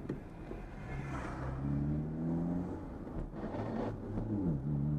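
Car engine heard from inside the cabin while driving, over steady low road rumble. The revs climb about two seconds in, then drop quickly about four seconds in and settle.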